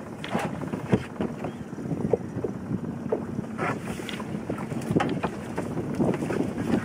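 Wind buffeting the microphone and water against a small open boat, with scattered knocks and clatter as a shrimp net is handled over the side.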